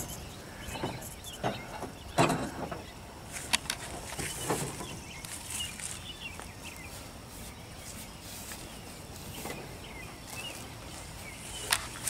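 Quiet outdoor ambience beside an open beehive: a few light knocks and clicks from handling the hive gear, the sharpest about two and three and a half seconds in, over faint short chirps and a soft hiss.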